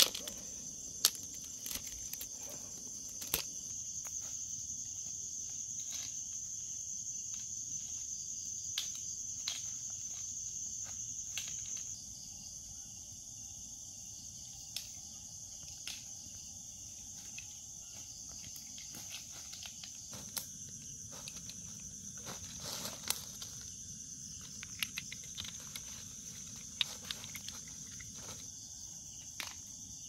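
Insects chirring steadily at a high pitch, a little quieter from about twelve seconds in, with scattered close clicks and rustles throughout.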